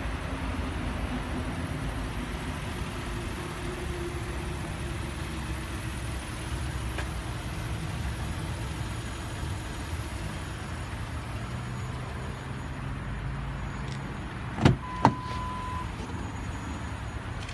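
Steady low outdoor rumble, then about fifteen seconds in two sharp clicks as the 2010 Ford Edge's door is unlatched and opened, followed by a single electronic chime from the car lasting about a second.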